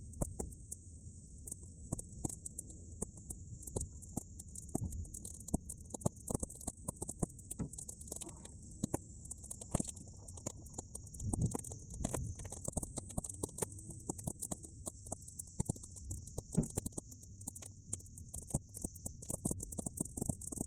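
Bonfire of half-dried weeds crackling, with frequent irregular pops and snaps over a low wind rumble and a steady high hiss.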